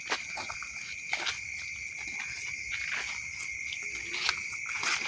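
Night insects, crickets, chirring steadily in a continuous high-pitched drone, with a few soft scattered clicks or rustles.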